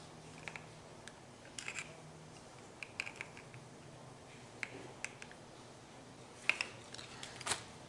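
Faint, irregular light clicks and taps close to the microphone, some single and some in short clusters of two or three, with the loudest pair near the end.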